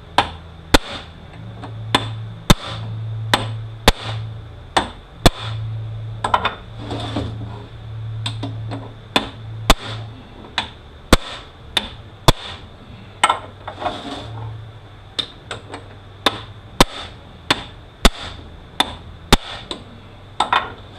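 Hammer striking a bushing driver to knock a planetary gear out of a U760E automatic transaxle: about two dozen sharp metal blows at an uneven pace, roughly one every second or less.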